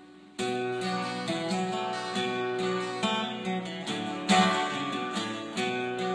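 Instrumental music, starting about half a second in after a brief gap.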